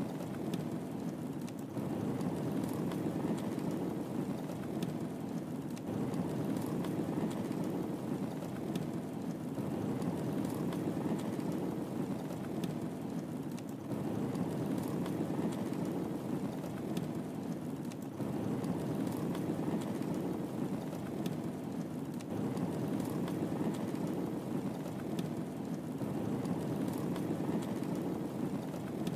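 Wood fire burning in a fireplace: a steady low rumble with faint, sparse crackles and pops.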